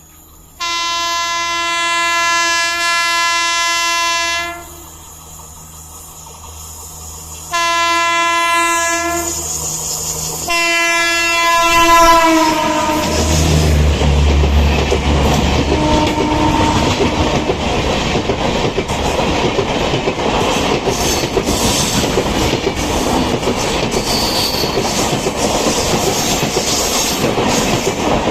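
WAP5 electric locomotive of the 12020 Shatabdi Express sounding its horn three times: a long blast of about four seconds, then two shorter blasts, the last dropping in pitch as the locomotive goes by. Then the train passes: a deep rumble from the locomotive, followed by the steady clickety-clack of the coaches' wheels over the rail joints.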